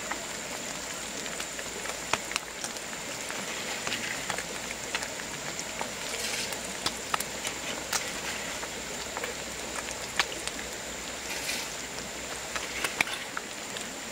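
River fish deep-frying in hot oil: a steady sizzle dotted with frequent sharp pops and crackles as the fish fry until crisp.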